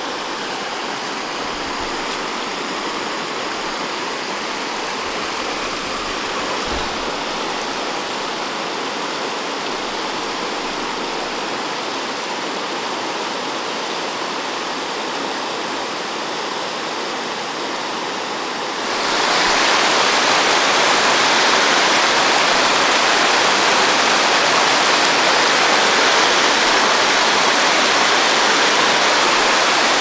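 Upper Sacramento River, running high after rain, rushing over rocks in a fast whitewater riffle: a steady rush of water that jumps suddenly louder about two-thirds of the way through.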